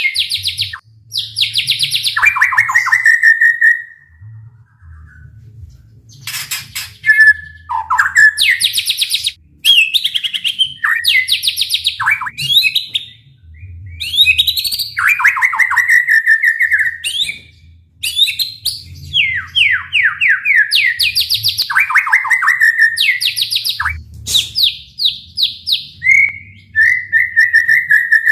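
White-rumped shama (murai batu) singing loud 'tembakan' phrases: fast, rapid-fire trains of repeated notes and sweeping whistles, each phrase about a second long, one after another with a short pause about four seconds in.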